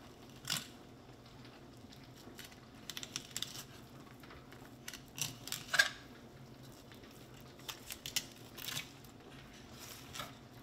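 Fillet knife cutting along the back of a bluefish on a plastic cutting board: a scatter of short scrapes and clicks, in small clusters.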